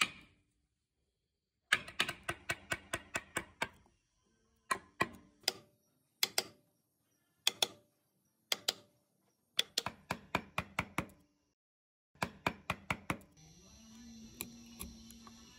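A steel wood chisel being driven into a stump's wood, giving runs of sharp knocks about four or five a second with short pauses between the runs. Near the end the knocks give way to a steady rasp as a flat chisel is scraped across the carved recess.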